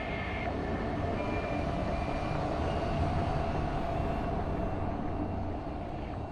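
Steady, low rumbling drone of an industrial-style soundtrack ambience, with faint thin high tones that come and go. It eases a little near the end.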